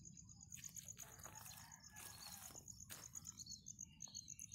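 Faint insect chirping: a steady, quick train of high notes, about seven a second. A few brief rustling noises come and go in the middle.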